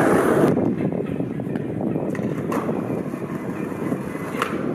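Skateboard wheels rolling over stone paving: a steady rumble with a few light clicks.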